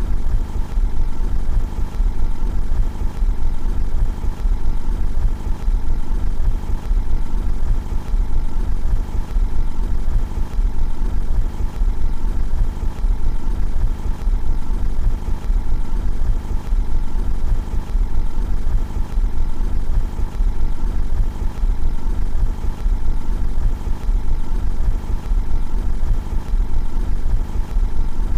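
Car engine running steadily at idle, heard from outside the car: an even low rumble with no revving.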